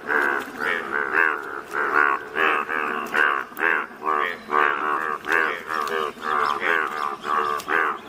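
A chorus of Indian bullfrogs, breeding males croaking over one another in short, rough calls at about two or three a second.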